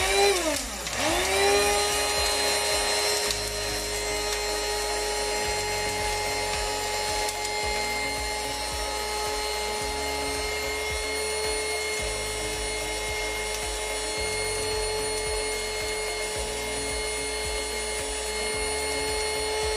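Small handheld electric grinder-blender running, grinding ehu seeds and uda. Its motor whine rises as it starts, dips briefly and spins up again in the first second, holds a steady pitch, then falls as it is switched off at the end.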